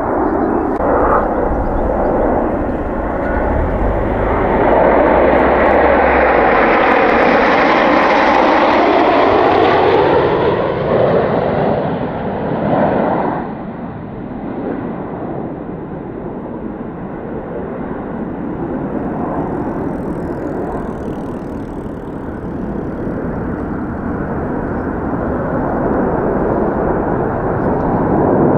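A fixed-wing aircraft flying over: its engine noise swells, with a sweeping, phasing quality, to its loudest about eight seconds in. It then drops away suddenly about 13 seconds in, leaving a lower steady rumble of noise.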